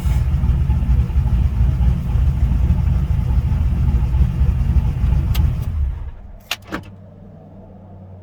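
Cammed 416-cubic-inch LS3 stroker V8 of a 2010 Camaro running with an uneven low rumble, then switched off hot about six seconds in. Two sharp clicks follow, and then a faint steady low hum.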